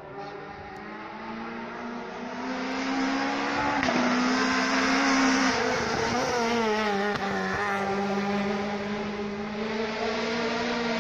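Renault Clio 3 rally car's engine at high revs as it approaches along the stage, getting louder over the first few seconds, its note dropping in steps a couple of times as the driver changes gear or lifts.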